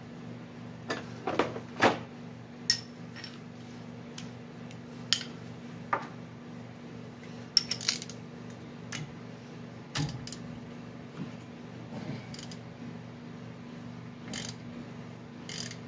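Scattered metal clinks and clicks of hand tools being handled, over a steady low hum. Near the end a socket extension is fitted onto a brake caliper bolt.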